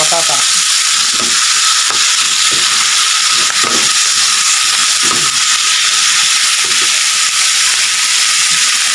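Corned beef and diced potatoes sizzling steadily in a frying pan, stirred every second or so with a metal spatula that scrapes against the pan.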